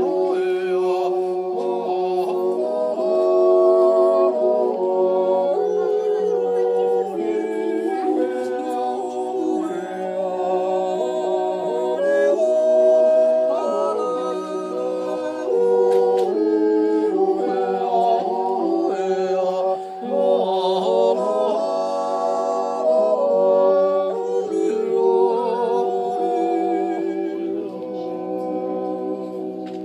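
A Schuppel of Silvesterchläuse singing a Zäuerli, the wordless Appenzell yodel: several men's voices in slow harmony, a lead voice changing pitch above held chords sung by the others.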